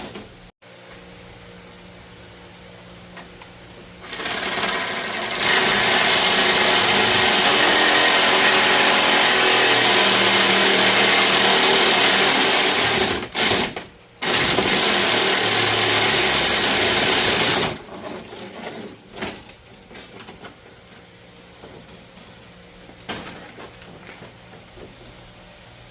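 Reciprocating saw (sawzall) cutting through the spring-steel wire of a fur stretcher. It starts about four seconds in, runs steadily for about nine seconds, stops briefly, then runs again for about three more seconds before shutting off.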